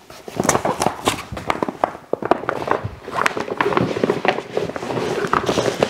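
A stiff waterproof dry-bag liner crinkling and rustling as it is pushed down into a soft motorcycle pannier's outer shell, a dense run of crackles and scrapes.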